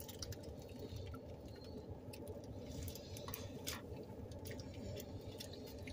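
Wet chewing and mouth smacks of people eating burritos, with irregular small clicks and rustles that fit the foil wrappers, over a steady low hum.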